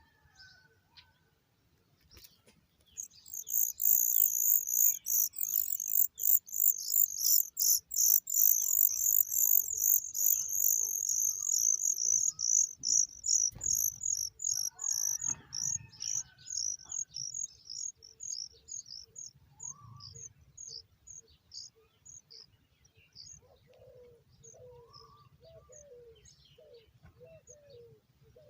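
Oriental magpie nestlings begging to be fed: a rapid run of shrill, high-pitched calls, several a second, starting about three seconds in and fading gradually over the next fifteen seconds or so. Near the end a lower series of short calls repeats about twice a second.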